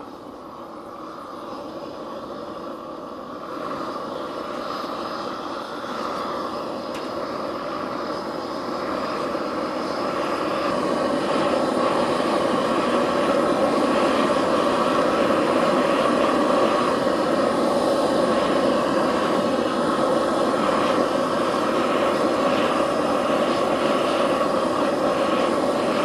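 Brush burner blowing its flame steadily into a cast iron skillet of pewter to melt it: a continuous rushing flame noise that grows louder over the first ten seconds or so, then holds steady.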